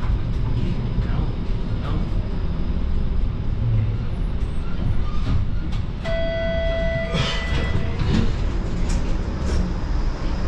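TTC streetcar running along its track: a steady low rumble with scattered clicks and rattles. About six seconds in, a beep sounds for about a second.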